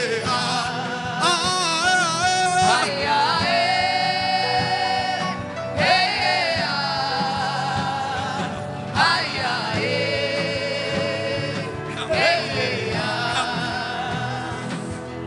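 Gospel worship singing: a voice holds long, wordless notes with vibrato in about five phrases, each phrase opening with an upward swoop, over a steady accompaniment.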